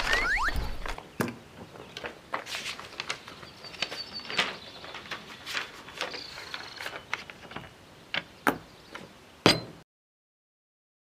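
Scattered small taps, knocks and paper handling sounds as contract sheets are handled, ending with a sharper thud about nine and a half seconds in; the sound then cuts off abruptly to silence.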